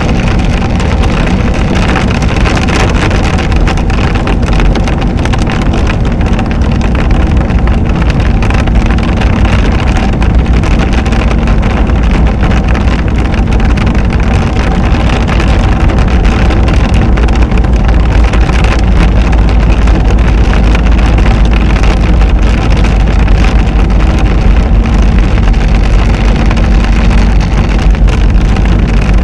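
Steady loud rumble inside a car driving through a rainstorm: engine and tyres on the wet road mixed with rain hitting the bodywork and windscreen.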